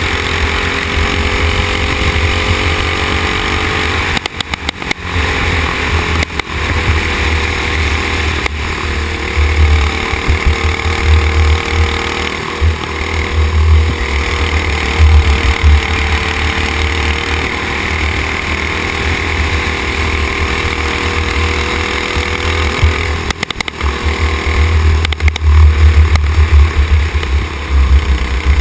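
Racing go-kart's engine running hard at speed, its pitch rising and falling slowly through the corners, with heavy wind rumble on the kart-mounted camera's microphone. The sound dips briefly twice, about four seconds in and again near the end.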